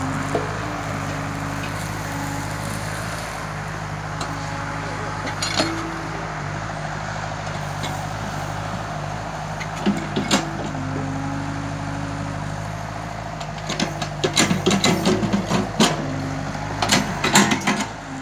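Hitachi Zaxis 48U mini excavator's diesel engine running steadily under hydraulic load as the bucket digs into turf, with a higher hum that comes and goes. A run of knocks and clatter comes in the last few seconds.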